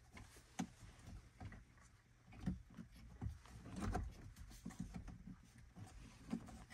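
Faint, irregular plastic taps and clicks as an aftermarket touchscreen radio is handled and pushed into the dashboard's plastic opening, bottom edge first.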